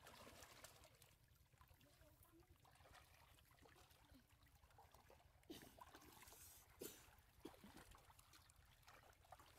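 Faint splashing and sloshing of shallow muddy water as people wade through it dragging a net, with a couple of brief louder splashes about five and a half and seven seconds in.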